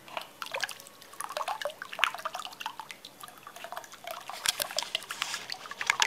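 Water jet of a small homemade tabletop fountain splashing and dripping into the pool of water in its clay bowl, an irregular patter of plinks and splashes.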